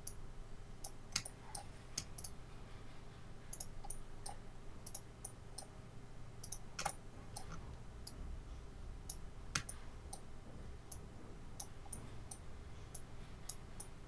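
Computer mouse clicking irregularly, several clicks a second at times, over a faint steady low hum.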